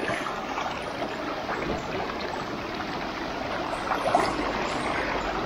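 Steady rush of river water flowing.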